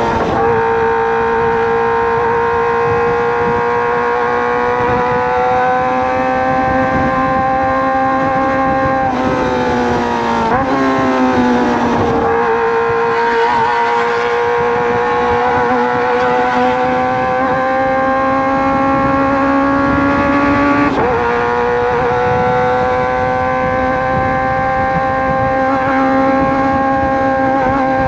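Kawasaki ZX-25R's 250 cc inline-four running at high revs through a Racefit Slash aftermarket exhaust, its pitch climbing slowly and steadily, with brief dips in pitch about a third of the way in and again about three quarters in.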